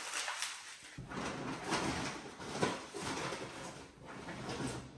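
Gift wrapping paper being crumpled and rustled by hand: an irregular run of short crackles.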